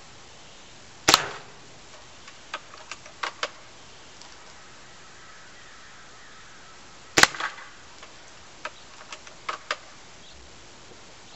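Airsoft L96 bolt-action sniper rifle shooting at a cardboard target: two sharp cracks about six seconds apart, each followed by a few lighter clicks and ticks.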